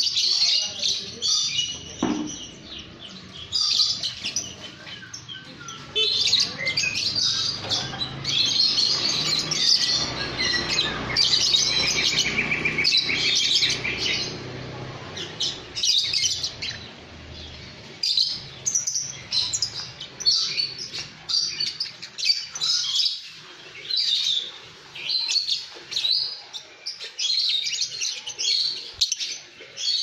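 A colony of lovebirds chattering: shrill, rapid chirps and squeaks from many birds at once, coming in bursts one after another.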